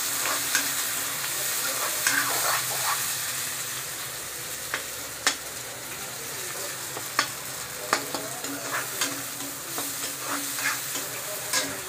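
Sliced onions sizzling in hot oil in a wok while a spatula stirs them, with irregular sharp taps and scrapes of the spatula against the pan.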